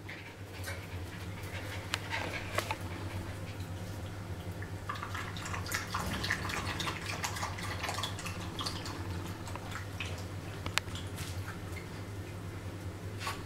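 Jack Russell terrier puppies and an adult terrier scuffling and playing on a tiled floor: a busy, irregular patter of claws clicking and scrabbling on the tiles, over a steady low hum.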